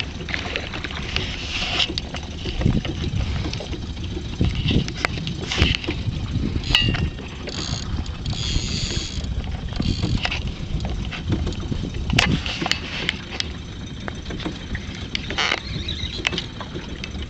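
Noise aboard a small fishing boat at sea: a steady low rumble of wind and water, with a few short hissing bursts now and then.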